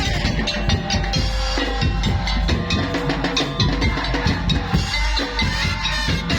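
Madurese patrol-music (daul/tongtong) ensemble playing: fast, dense drumming and percussion under held melody notes.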